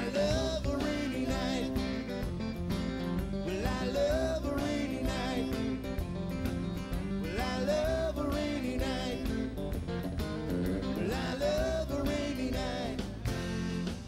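Live country band music, with acoustic guitar and a man singing a melody that glides up and down over a steady beat.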